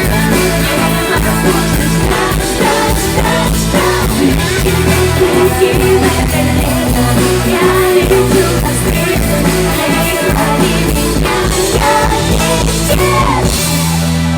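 Live pop-rock band music, with guitar, bass and drums under a woman singing, settling into a held chord near the end.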